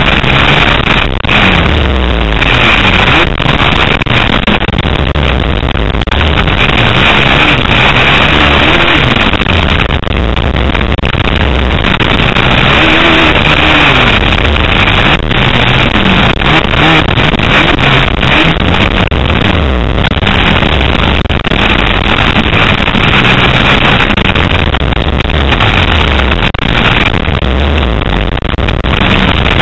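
Dirt bike engine revving up and falling back again and again as the bike is ridden over a motocross track's jumps, heard from a camera on the moving bike, with heavy wind buffeting on the microphone.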